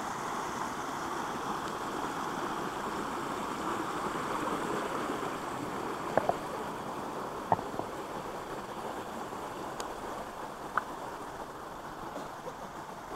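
Creek water rushing steadily over small rock cascades. A few sharp clicks stand out above it, about six, seven and a half and eleven seconds in.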